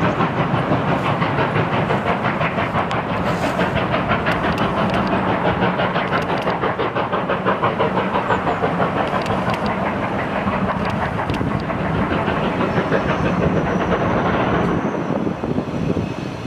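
Two-cylinder class 50.35 steam locomotive 50 3501 working under steam, a fast, even beat of exhaust chuffs that eases off slightly near the end.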